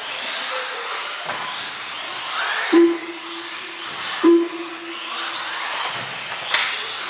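Several 4WD RC buggies' electric motors whining around a carpet track, with repeated rising sweeps in pitch as the cars accelerate out of corners. Two short, loud steady beeps sound about a second and a half apart near the middle.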